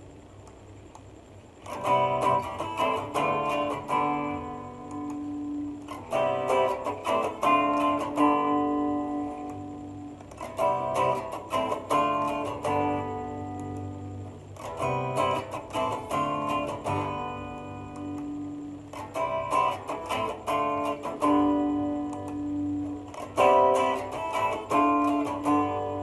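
Electric Super Strat guitar with high-output hotrail humbuckers, played through the middle and neck pickups: the same short phrase of picked notes and chords played six times, starting about two seconds in, each repeat on a different coil-split combination of the two pickups.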